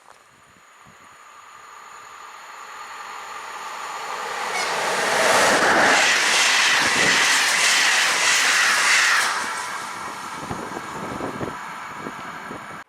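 A train approaching and passing at speed: its rumble and rail noise build up to a loud peak, then ease as the cars go by with wheels clicking over the rail joints. The sound cuts off suddenly near the end.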